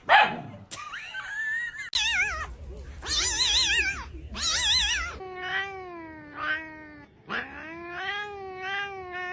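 Cats yowling and caterwauling in a string of clips. A sharp cry at the start is followed by warbling, wavering yowls. About five seconds in, these give way to long drawn-out meowing calls that bend slowly in pitch.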